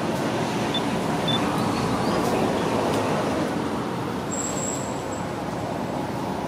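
Steady background rumble and hiss, with two brief high chirps about a second in and a thin high whistle about four seconds in.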